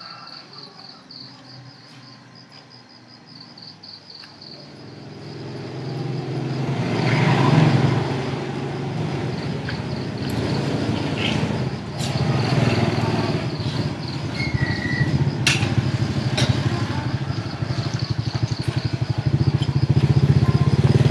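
Crickets chirping in a steady pulsing trill. From about five seconds in, motorcycle engines grow louder and keep running, with a few sharp clicks along the way.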